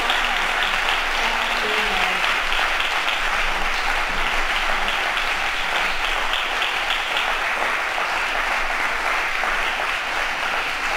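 Audience applauding steadily after a talk.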